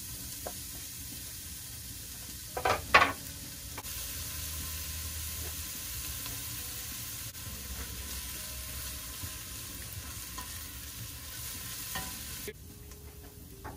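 Chopped onion sizzling steadily as it fries in hot olive oil in a saucepan, with two brief louder knocks about three seconds in. The sizzle drops off near the end.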